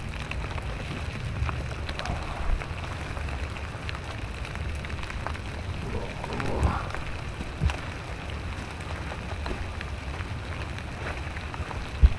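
Steady rain falling on leaf litter and brush, with footsteps through the wet leaves. A few sharp thumps stand out, the loudest near the end.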